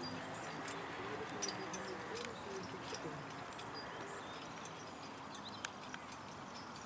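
Single horse trotting on grass in harness, pulling a four-wheeled carriage: soft hoofbeats and sharp clicks and knocks about every three-quarters of a second, thinning out over the second half as the turnout moves away.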